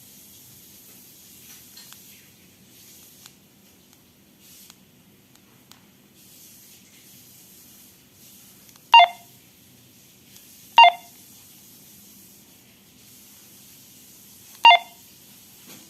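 Handheld two-way radio giving three short key beeps as its buttons are pressed while its menu is being set, the second about two seconds after the first and the third about four seconds later, with faint button clicks between them.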